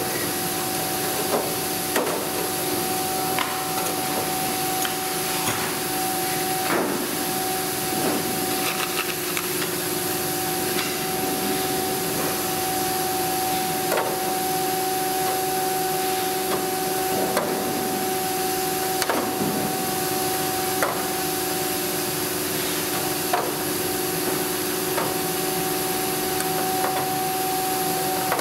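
Steady workshop hum with a constant hiss, overlaid by irregular light clicks, taps and rubbing from hand work on thin aluminium aircraft parts.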